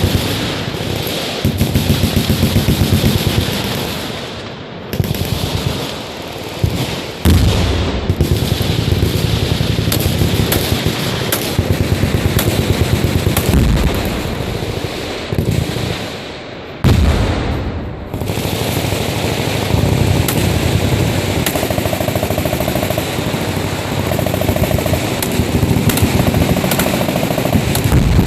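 Many machine guns firing full-auto at once along a firing line: continuous overlapping rapid bursts, easing briefly twice, with one louder single blast about two-thirds of the way through.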